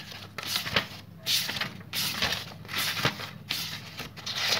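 Paper pages of a thick textbook being flipped one after another: a string of quick papery swishes.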